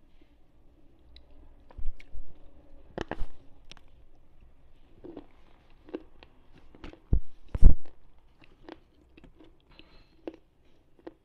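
Slate pencils being bitten and chewed: irregular sharp crunches, with the loudest bites a little past the middle.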